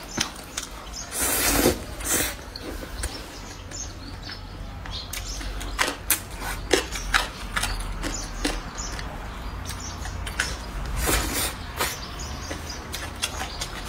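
A person eating stir-fried rice noodles close to the microphone: wet chewing and lip smacks with many short clicks, and two longer slurps as noodles are sucked in.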